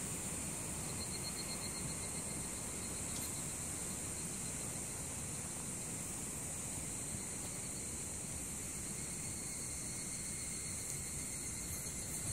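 Higurashi cicadas calling in chorus, a steady high shrill, with a faster pulsing trill joining about a second in.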